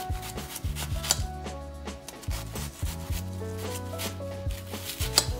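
A sharp kitchen knife slicing a red onion into thin rings, each cut ending in a sharp tap on a hard stone board. The taps come unevenly, about one to two a second, over background music with held notes.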